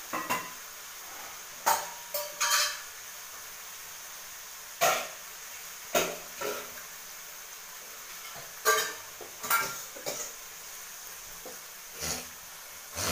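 A metal spoon stirring goat intestine fry in a metal kadai, clinking and scraping against the pan about ten times at an irregular pace, over a steady faint sizzle of frying.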